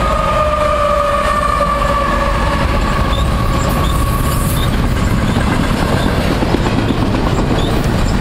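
BNSF double-stack container train passing close by. A whine from the passing locomotive falls slightly and fades out about four and a half seconds in, leaving the steady rumble and clatter of the container well cars' wheels on the rails.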